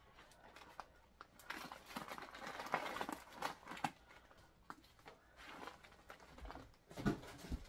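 Plastic bag rustling and crinkling in two spells, with small objects clicking and knocking as they are picked up off a cluttered table, and a louder knock a little after 7 seconds.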